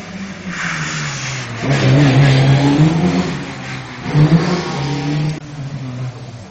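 Rally car engine revving hard as the car passes close by on a town stage, its note rising and falling through the revs; loudest about two seconds in, with another sharp burst of revs just after four seconds, then fading away.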